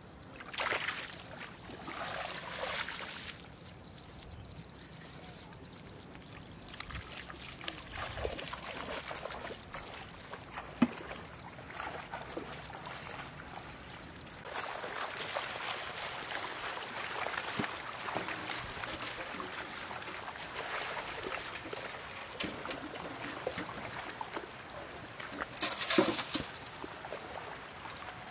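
Shallow water sloshing and trickling, with a few louder splashes, the loudest near the end.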